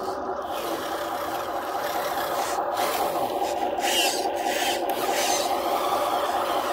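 Radio-controlled construction model working, its small motors and gears giving a steady whir under a rough rasping, scraping noise.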